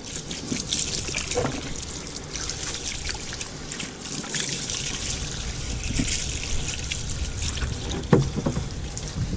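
Water from a garden hose spraying and trickling steadily over a fish-cleaning table's cutting board as it is rinsed down.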